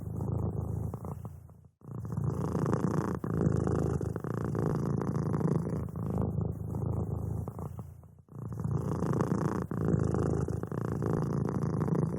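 Domestic cat purring steadily in a close, rough, fast-pulsing rumble, with two brief breaks, about a second and a half in and again after eight seconds.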